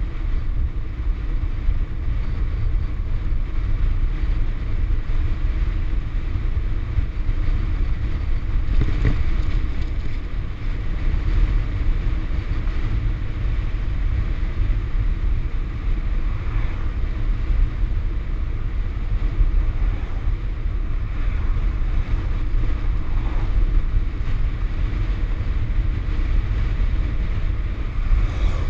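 Steady wind rumble buffeting the microphone of a camera on a bicycle during a fast downhill descent: a constant low roar with a hiss over it.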